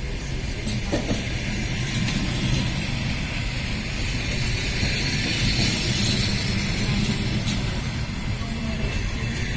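Passenger train coaches rolling past at speed: a steady rumble of wheels on the rails with a rushing hiss that swells midway, and a few sharp clicks.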